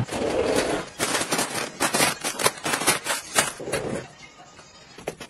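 Plastic snack packets crinkling and rustling in rapid crackles, dying down about four seconds in.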